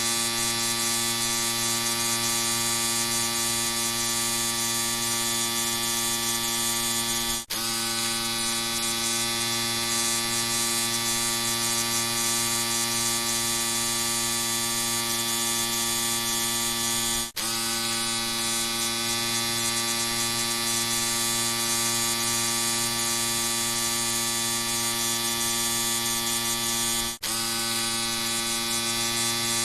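Electric shaver running with a steady buzz. The buzz dips briefly three times, about ten seconds apart.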